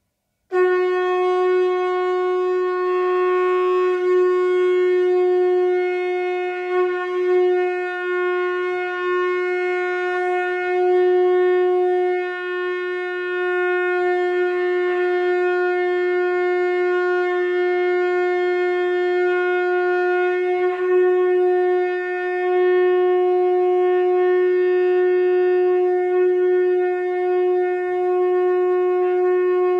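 A steady held tone with many overtones, like a sustained horn or organ note, starting abruptly about half a second in after dead silence and holding one unchanging pitch.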